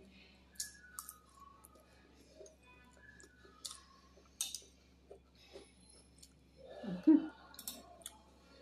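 Eating sounds close to the microphone: sharp clicks of a spoon tapping and scraping on a plate, with mouth clicks from chewing. A brief hum is heard about seven seconds in.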